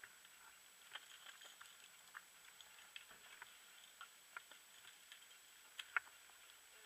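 Near silence broken by faint, scattered clicks and ticks, irregularly spaced, the sharpest about six seconds in, over a thin steady high whine.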